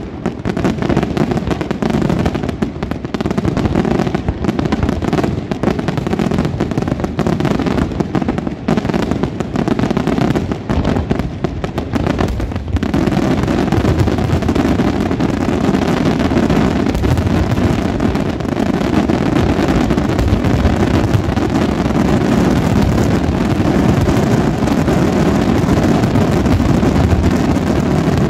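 Aerial firework shells bursting in rapid, overlapping salvos, the closing barrage of a pyrotechnic display: a fast crackle of reports that about thirteen seconds in thickens into one continuous rumble of explosions.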